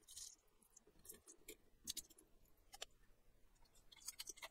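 Near silence broken by faint, scattered small clicks and crackles, about a dozen, with a quick run of them near the end.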